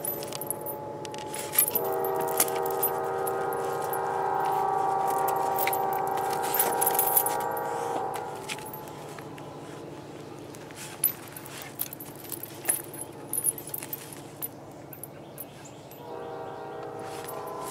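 A dog's metal tie-out chain rattling and clinking as the dog moves about. A train horn sounds a steady chord of several notes for about six seconds, stops, and starts again near the end.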